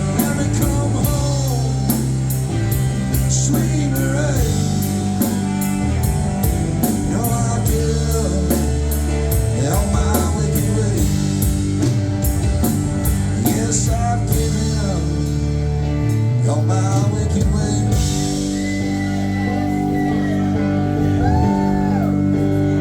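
Alt-country band playing live with no vocals: a guitar lead with bent notes over bass and a drum kit keeping a steady cymbal beat. About fifteen seconds in, the drums drop out, leaving held guitar and bass notes.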